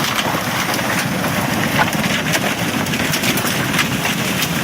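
Steady rush of floodwater, with scattered crackles and pops.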